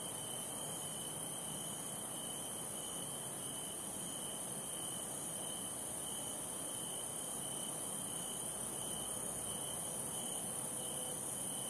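Night-time insect chorus: a steady high-pitched shrilling with a lower chirp that pulses over and over at an even pace. It dips slightly about a second in.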